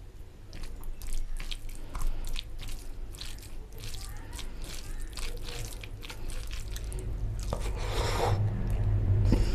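Close-miked eating by hand: wet chewing and lip smacking of rice and chicken curry, with squishy sounds of fingers mixing rice into oily gravy. A low hum grows louder toward the end.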